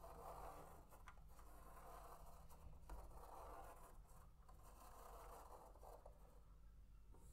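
Faint scratching of a fineliner pen drawing on paper while a clear plastic Spirograph gear is rolled around inside a toothed ring. It comes in about three strokes of roughly a second each, with short pauses between.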